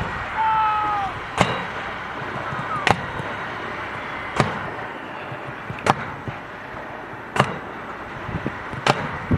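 Volcano mine dispensing system on a moving army truck firing mine canisters: a sharp pop about every second and a half, over the truck's steady engine noise.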